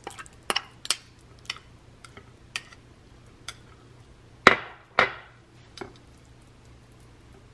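A kitchen utensil clicking and knocking against a glass bowl and plate while mashed avocado is scooped and spread onto English muffin halves: a series of light taps, with two sharper knocks about four and a half and five seconds in.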